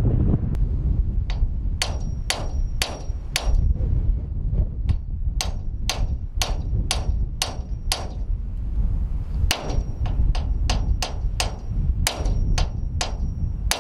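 Hand hammer striking the steel of a JLG 80HX boom lift's boom at a stuck cylinder pin, a steady run of sharp metal blows about two a second with a high ringing after many of them. The blows pause briefly about two thirds of the way through, then resume. Wind rumbles on the microphone underneath.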